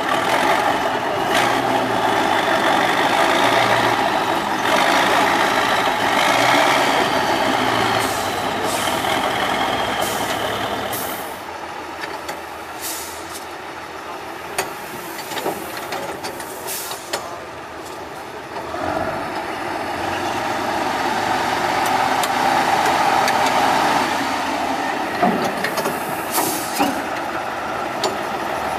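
Diesel engines of 8x8 Tatra trial trucks working under load while crawling over steep, rutted ground. The sound is loud, eases off about halfway through and then builds again, with a few short high hisses.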